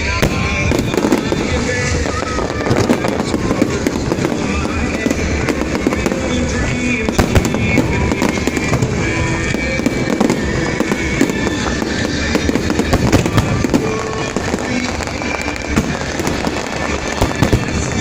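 Aerial fireworks bursting and crackling in a rapid, irregular string of sharp bangs, with music playing underneath.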